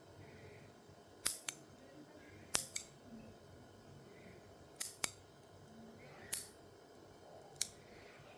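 Nail clippers cutting nails: about eight sharp clicks, mostly in close pairs, every second or two.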